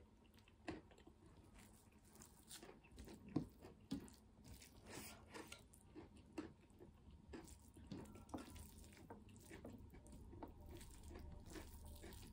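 Fingers mixing cooked maize rice with fried kinema and dry meat on a metal plate: faint, scattered wet squishes and light clicks, with soft chewing.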